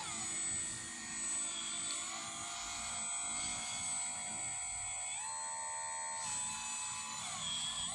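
Radio-controlled scale Kobelco SK200 hydraulic excavator running, its electric hydraulic pump giving a steady high whine while the upper body slews and the boom moves. The pitch steps up about five seconds in, drops back a second later and dips again near the end as the hydraulic load changes.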